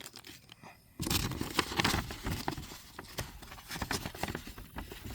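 A paper target card handled close to the microphone, rustling and crinkling in irregular small clicks that start about a second in.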